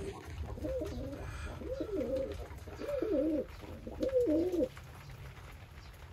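Tippler pigeons cooing: four coos about a second apart, each wavering up and down in pitch, stopping about two-thirds of the way through.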